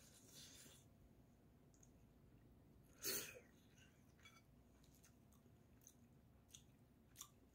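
Soft eating sounds: faint chewing and a few light clicks of chopsticks against the dishes, with one short, loud breathy sound from the eater about three seconds in.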